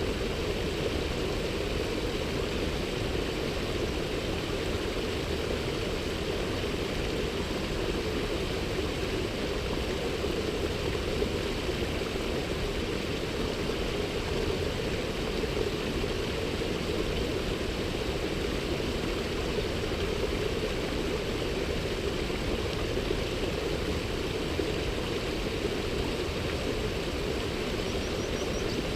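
Steady rush of water from a mountain stream or waterfall, an even, unbroken noise.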